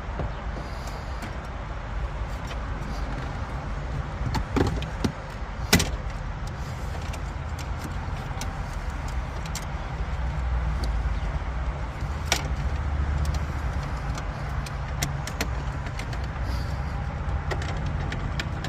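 Plastic dashboard trim being worked loose by hand, with scattered clicks and knocks and three sharper snaps, about four and a half, six and twelve seconds in, over a steady low rumble.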